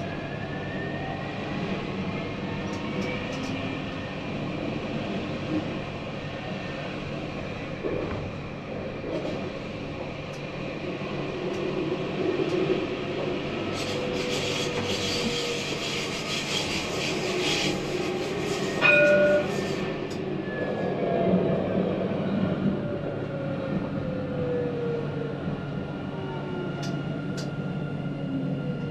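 Tram running on rails, with whining tones from its drive that glide up and down as it speeds up and slows. About halfway through comes a hiss lasting several seconds, ending in a short ringing tone.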